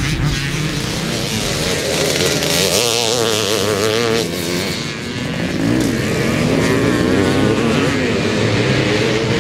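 Motocross bike engines revving up and down under load as riders race on a dirt track, several bikes at once.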